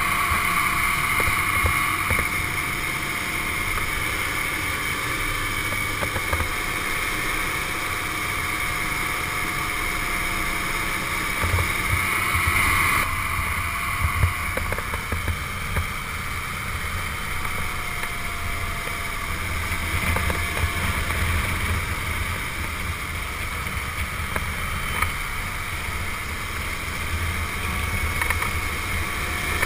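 Bombardier snowcat's diesel engine running steadily with its tracks clattering, heard from the open passenger deck right behind the cab; a thin whine drifts slowly up and down in pitch over the engine noise.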